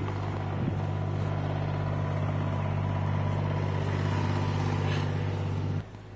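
A vehicle engine running steadily with a low, even hum, which cuts off abruptly near the end.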